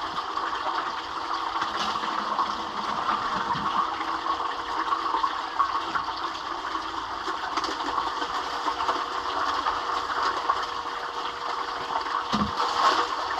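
Steady rush of running water while gold concentrates are washed during cleanup, with a faint steady hum underneath.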